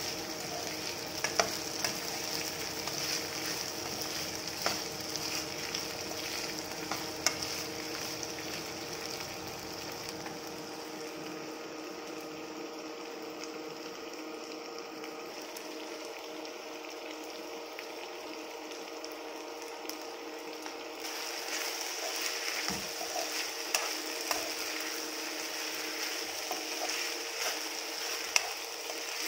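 Potato strips with sliced onion and green chillies sizzling steadily as they fry in a non-stick pan, with a metal spoon clicking and scraping against the pan now and then as they are stirred.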